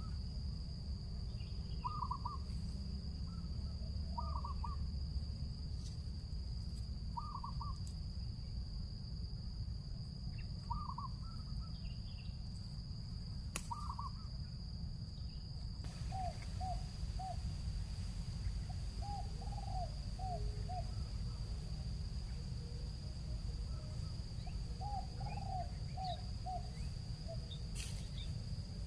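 Spotted doves (tekukur) cooing: short phrases of a few notes every two to three seconds, then from about halfway lower-pitched, longer runs of four or five notes. A steady high insect drone and a low rumble run underneath.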